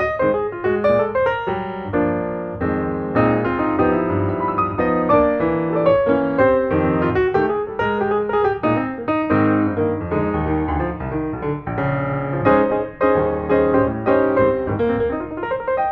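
Background music: solo piano playing a run of quick notes over chords.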